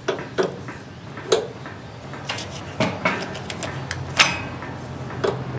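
Metal spanners clinking and knocking as they are picked up and handled, a scatter of separate sharp clinks with the loudest about four seconds in.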